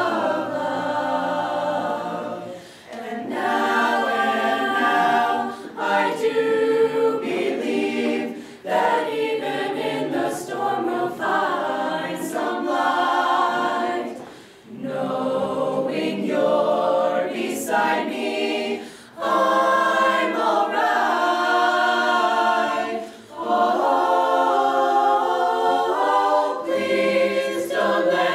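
High school show choir of mixed voices singing, phrase by phrase with short breaks between phrases.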